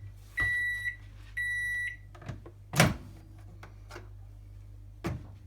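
Microwave oven's end-of-cycle beeps, two half-second tones about a second apart, then a loud clunk a little under three seconds in, which fits the door latch popping open, followed by a few lighter knocks.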